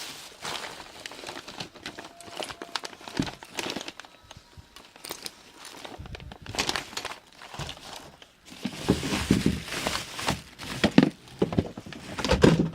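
Rustling, crinkling and knocking of things being handled and moved about while someone rummages, searching for an object. There are many irregular clicks, with heavier bumps and rustles in the last few seconds.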